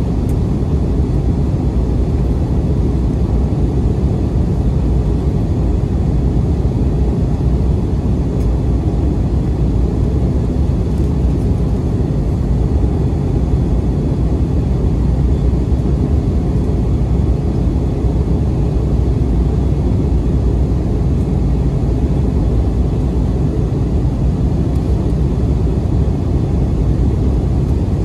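Steady cabin noise of an Airbus A320-232 in flight: an even, low rumble of its IAE V2500 turbofan engines and the air rushing past the fuselage, unchanging throughout.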